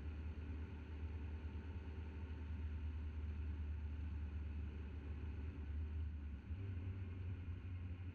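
Car driving on a country road: a steady low rumble of engine and road noise picked up by a camera on the bonnet. The rumble shifts slightly in pitch about six and a half seconds in.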